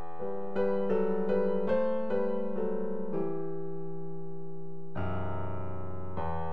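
Solo piano intro to a rock song: a held chord, then a quick run of single notes from about half a second to three seconds in, settling onto a long sustained chord, with a new chord struck near five seconds.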